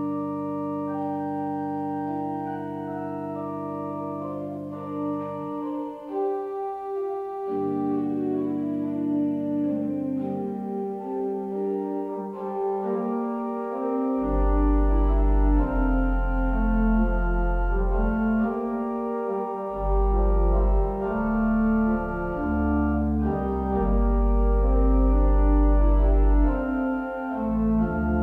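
Organ music with slow, held chords. Deep pedal bass notes come in about halfway through.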